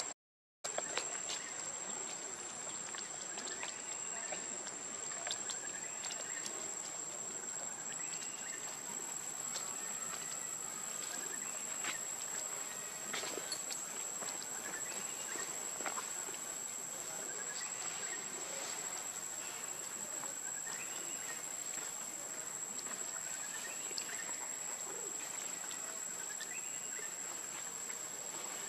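Forest ambience: a steady high-pitched insect drone, with faint short chirps and soft scattered rustles and clicks in the leaf litter.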